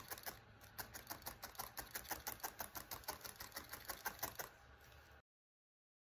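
Barbed felting needle stabbing quickly and repeatedly through wool into a foam felting mat, a fast even ticking about five stabs a second as the wool is felted into shape. The stabbing cuts off suddenly about five seconds in.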